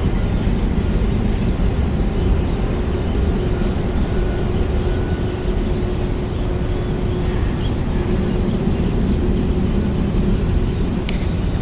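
Steady low background rumble of distant machinery, with a constant faint hum.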